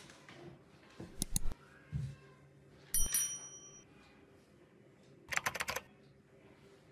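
Scattered clicks and taps on a computer keyboard: a couple of clicks, a soft thud, a sharper click that rings briefly, then a quick run of about six keystrokes near the end.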